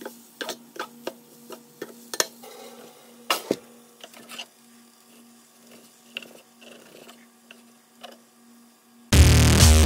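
Tongs clicking and scraping in a nonstick frying pan about three times a second as noodles are tossed, over a steady low hum. A knock comes a little after three seconds, followed by soft, irregular sounds of a knife slicing a seared ribeye steak on a plastic cutting board. Loud electronic music starts near the end.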